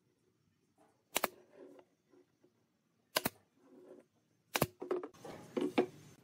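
Pneumatic nail gun firing three nails into pine boards: three sharp snaps, the second about two seconds after the first and the third about a second and a half later, each followed by a light wooden knock. Near the end, knocks and rustle as the boards are handled.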